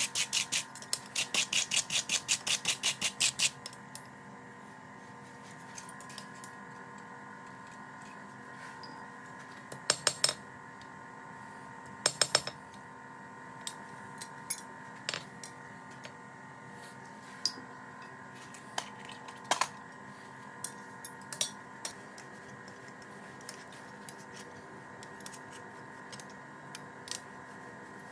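Workshop work noise: a quick run of even, sharp strokes, about six a second, for the first few seconds, then scattered clicks and knocks of tools and parts being handled, over a steady hum.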